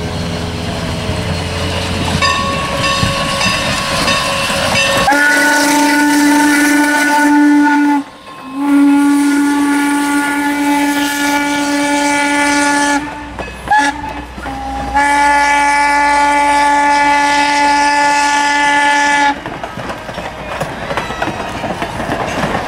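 Steam whistle of Baldwin-built ex-Norfolk and Western class M 4-8-0 No. 475 blowing long, long, short, long, the standard signal for a grade crossing, over the clatter of the passenger coaches rolling past on the rail joints. The train's rumble is heard before the whistle starts and after it stops.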